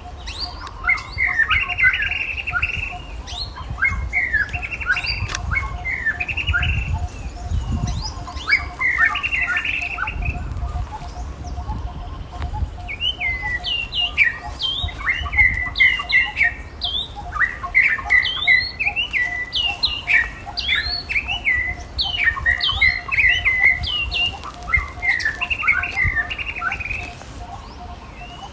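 Runs of short, high-pitched chirping and squeaking calls, each gliding up or down, repeating in bursts all through. A low rumble sits underneath.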